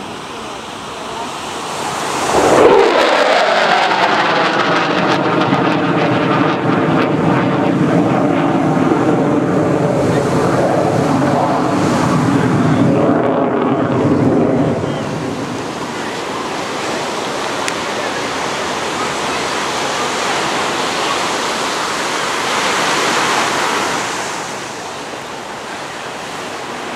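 Twin-engine F-18 jet passing overhead. Its noise builds sharply about two seconds in, with a pitch that falls as it goes by, and stays loud until about halfway. It then drops to a lower, steadier rush that swells briefly once more near the end.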